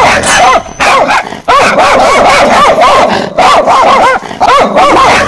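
Loud, rapid, continuous dog barking that starts suddenly, with short breaks. It is a fake dog bark: recorded barking used as a prank sound.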